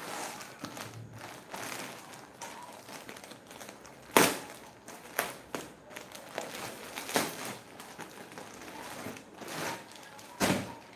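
Clear plastic garment bags crinkling and rustling as packed kurtis are handled, with sharp crackles of the plastic, the loudest about four seconds in and again near the end.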